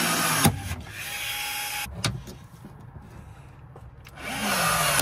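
Cordless pop-rivet tool pulling rivets into the car's sheet-metal body: the motor whines, a sharp snap about half a second in is the mandrel breaking, and the motor runs on for a moment. A second rivet pull starts near the end.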